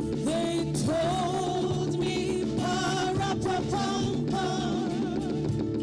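Live gospel worship song: a worship team of singers holding long notes with vibrato over band accompaniment with steady chords and a regular beat.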